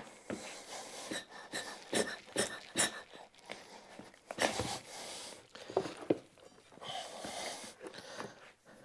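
Tire spoons and the rubber tire working against a small lawn tractor wheel rim to break the bead loose: irregular knocks, clicks and scraping.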